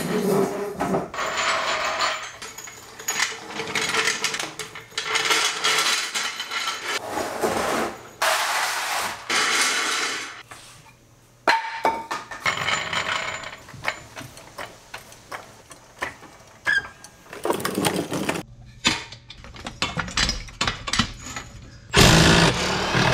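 Garage work noise: tools and metal equipment clattering and ratcheting in a series of separate bursts, with a cordless power tool running on a bolt near the end.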